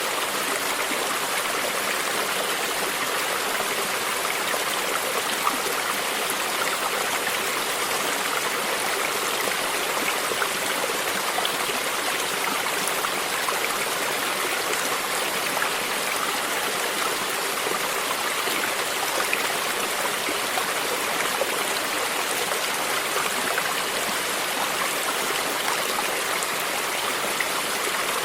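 A stream flowing steadily: an even rush of water with lapping and trickling close by.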